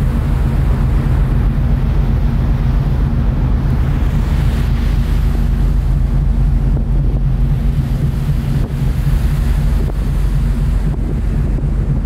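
Steady low drone of a ferry's engines heard from the open deck, under wind rushing on the microphone and the wash of the sea along the hull.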